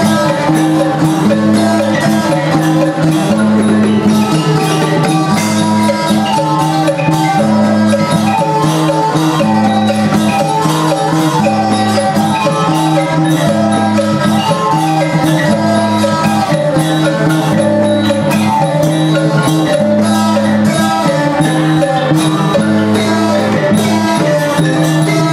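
Thai folk music played live by a small student ensemble with drums and plucked strings. A low figure repeats about every second and a half over a steady beat.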